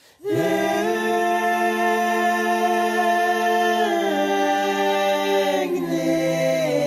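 Background music of long held vocal chords in a choir-like style. It starts suddenly just after the opening and changes chord about four and six seconds in.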